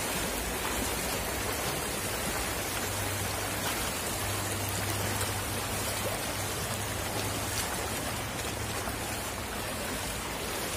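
Shallow stream water rushing and splashing steadily around a person wading through it and sweeping a scoop net. A faint low hum sits under it for several seconds in the middle.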